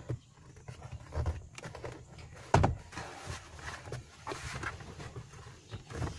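Plastic knocks and rattles from a car glovebox being handled and lifted to unclip it, with one sharp knock about two and a half seconds in.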